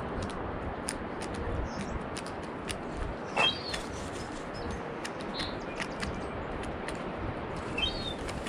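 Crows pecking seeds off a deck railing close by: a scattered run of sharp beak taps on the wood, with a few short high chirps now and then over steady background noise.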